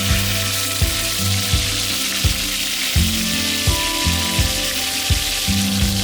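Steak sizzling as it cooks, a steady high hiss, under background music with a steady beat.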